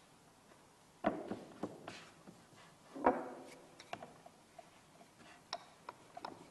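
Knocks and thuds on a wooden pastry board while dough is handled and rolled. A cluster comes about a second in and a louder knock about three seconds in, followed by a run of light taps and clicks.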